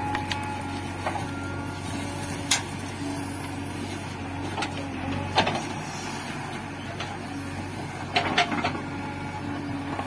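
JCB 3DX backhoe loader's diesel engine running steadily while the backhoe works, with a humming tone that comes and goes. Sharp clanks from the bucket and from soil and stones landing in a tractor trolley come about two and a half seconds in, again about halfway, and as a quick cluster near the end.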